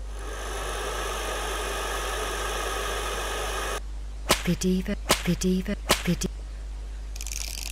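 Hot-air heat gun running on low: a steady blowing hiss with a few even tones, which cuts off abruptly about four seconds in. Then a quick series of about ten sharp whip cracks.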